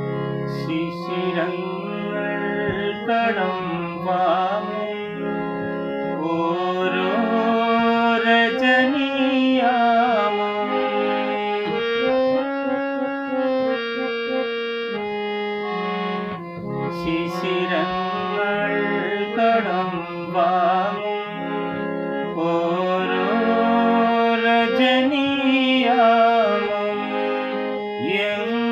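Hand-pumped harmonium playing sustained chords and melody, with a man's voice singing a Malayalam film song over it in several phrases.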